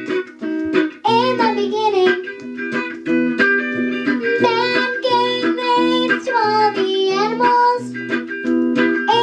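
A young girl singing into a microphone over a strummed electric guitar accompaniment.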